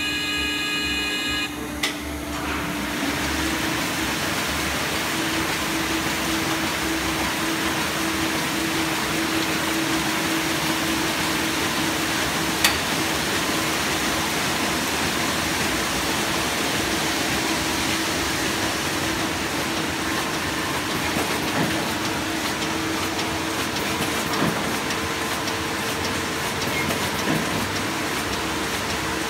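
Muller Martini Bravo Plus saddle stitcher running: a continuous, even mechanical whir with a steady hum and an occasional click. A short held tone sounds in the first second or so.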